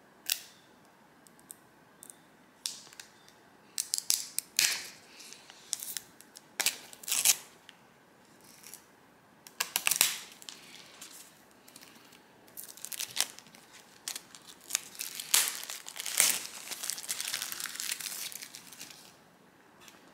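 Plastic wrap being torn and pulled off an AirPods Pro box: irregular crinkles and sharp rips, with a longer stretch of steady crinkling near the end.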